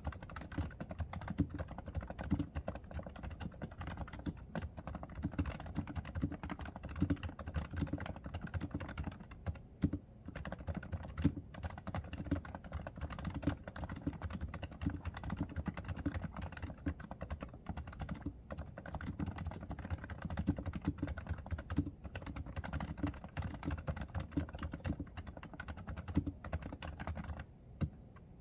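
Typing on a Realforce R2 silent keyboard with 30 g Topre electrostatic capacitive switches: a fast, continuous run of dull, low-pitched keystrokes that stops just before the end.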